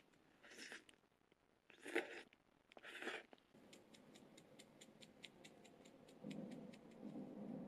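Faint tabletop food-handling sounds around a bowl of udon: three short soft rustles, the middle one loudest, then a quick run of light ticks about six a second, and a few soft low knocks near the end.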